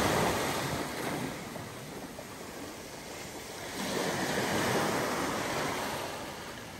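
Sea waves washing in on a stony shore: one wave breaking at the start and ebbing away, then a second swelling up about four seconds in and fading.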